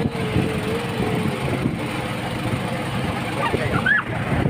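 Small wooden boat's motor running steadily as the boat moves over the water, a dense low rumble, with wind on the microphone. A voice calls out briefly near the end.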